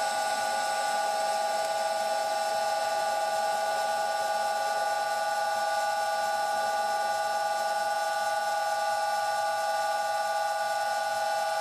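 Old Karger metal lathe running at a raised spindle speed with a steady whine while a facing cut is taken toward the centre of a metal bar.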